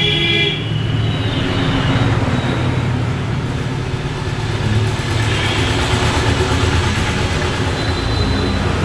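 Street traffic: motor vehicle engines running and passing, a steady low rumble with road noise.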